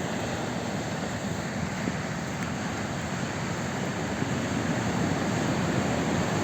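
Sea waves washing in under steady wind rumbling on the microphone.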